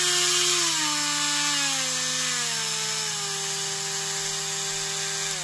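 Ryobi HT20VSK rotary tool's permanent-magnet motor running, its whine dropping in pitch in several steps over the first three seconds as the speed dial is turned down through its detents, then holding steady at a low speed. A steady low hum runs underneath.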